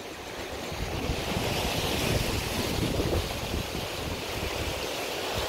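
Waves washing in on the shore, a hiss that swells about two seconds in and then slowly eases, with wind rumbling on the microphone.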